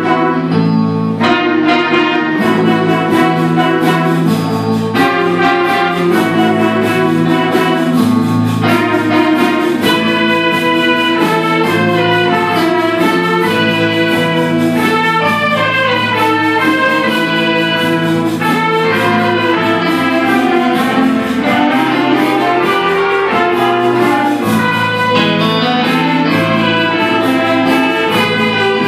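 A school wind orchestra of clarinets, saxophones and brass, with guitars, playing a piece under a conductor at a steady loudness, the melody moving through many changing notes.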